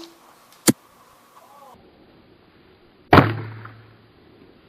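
Classic Army M24 bolt-action airsoft sniper rifle firing once about three seconds in: a loud crack that rings out with a low hum for about a second. A single sharp click comes shortly before it.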